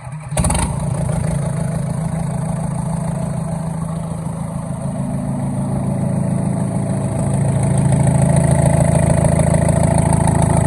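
Old Komatsu bulldozer's diesel engine catching about half a second in and running loud with no exhaust fitted, getting louder about three quarters of the way through. The fourth cylinder is now firing after its stuck injector was freed and the fuel bled.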